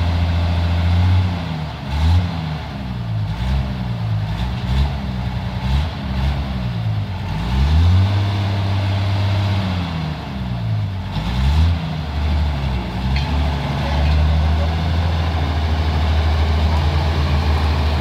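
Heavy truck engine running at a steady idle, revved up and down repeatedly through the middle, settling back to a steady idle near the end as the old flatbed truck pulls forward.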